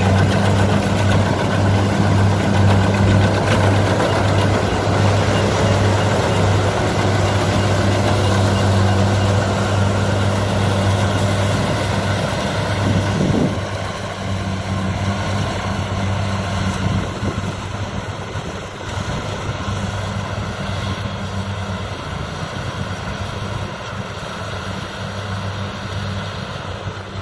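Diesel engine of rice-harvesting machinery running steadily with a deep, even hum, growing quieter about halfway through as the machine moves off or throttles back.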